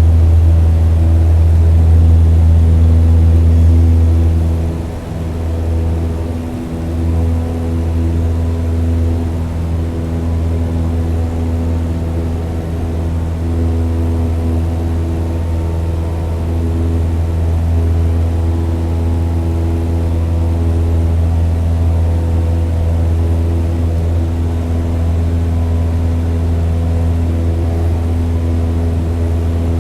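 Toy model airplane's motor and propeller in flight, a steady low drone that sags briefly about five seconds in and again a couple of seconds later, then holds even.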